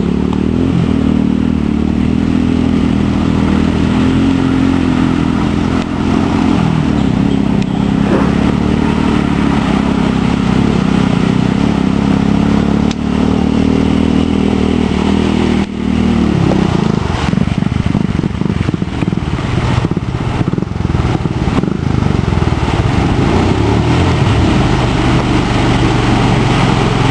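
Honda ATV engines running and revving up and down as the four-wheelers churn through a mud hole, the pitch rising and falling with the throttle.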